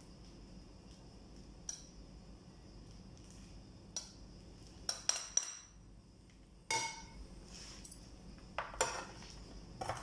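Metal serving spoon clinking and scraping against a serving bowl and plate as a fried topping is spooned over rice. The clinks come singly at first, then in clusters through the middle and near the end.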